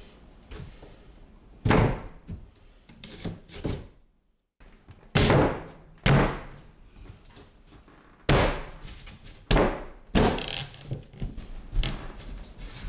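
Wooden shelf pieces and blocks being set and knocked into place inside a cabinet: a series of sharp wooden knocks and thunks, with a brief silent break about four seconds in.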